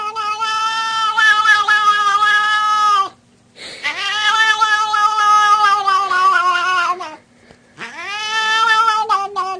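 Domestic cat yowling in long, drawn-out howls: three of them with short breaks between, each about three seconds long and sliding down a little in pitch at its end.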